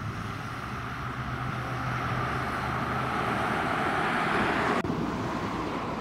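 Road traffic noise: tyres on a sealed road as a vehicle passes, a steady rushing sound that grows louder over the first few seconds, briefly broken about five seconds in.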